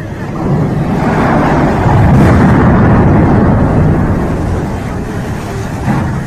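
A tall steel lattice crane collapsing: a long, loud crash of the structure coming down and throwing up spray and dust. It builds about a second in, is loudest for a second or two, then slowly dies away.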